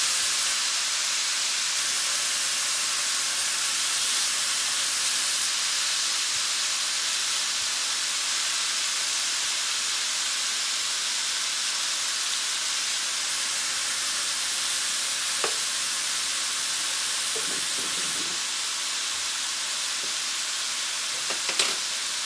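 Ribeye steaks sizzling on the hot plate of an Oster ceramic electric reversible grill, a steady hiss. A couple of light clicks come late on.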